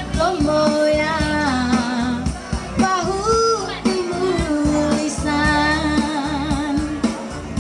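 A woman singing karaoke through a microphone and loudspeaker over a recorded backing track, holding long notes with a wavering vibrato.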